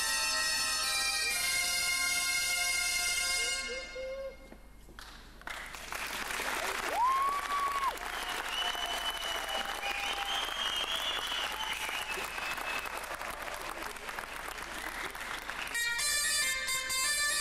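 Ensemble of bombardes (Breton double-reed shawms) playing the last bars of a tune, which stops a few seconds in. After a short lull the audience applauds, with one rising whistle. Near the end, Breton pipe-band music cuts in abruptly.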